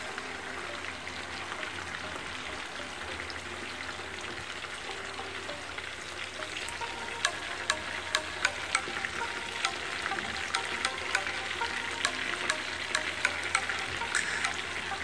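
Chicken pieces deep-frying in a pan of hot oil: a steady sizzle, with sharp crackling clicks that become frequent from about halfway in.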